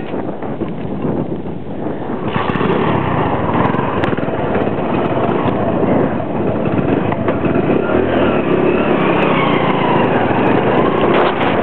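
Small motorcycle engine running as the bike rides across rough farm ground, heard from the seat behind the rider, mixed with wind on the microphone.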